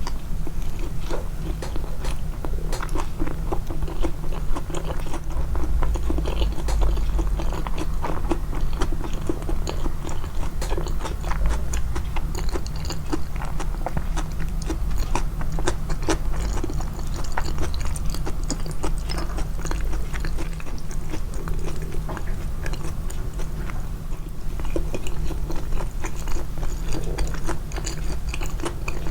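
Close-miked chewing and biting of a person eating, many small wet clicks and occasional crunches throughout.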